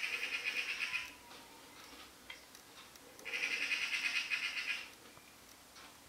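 Eurasian magpie giving its harsh, rapid rattling chatter in two bursts, the first about a second long and the second about a second and a half, starting about three seconds in: a mobbing alarm call at a cat near its nest.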